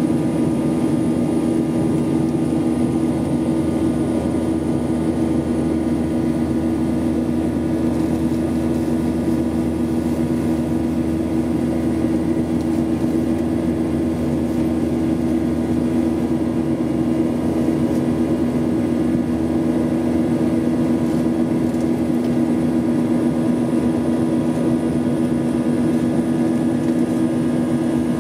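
Airliner cabin noise during the climb after takeoff: a steady rush of engines and airflow with a constant low two-note hum.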